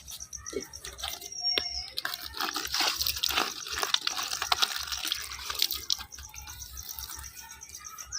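Water splashing and dripping, with many small drops and clicks, loudest in the middle. A bird trills high and fast near the start and again near the end, with a falling chirp at the end.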